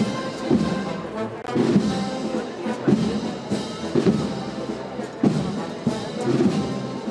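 Brass band (banda de música) playing a Spanish processional march, with brass carrying the tune over a steady drum beat about once a second.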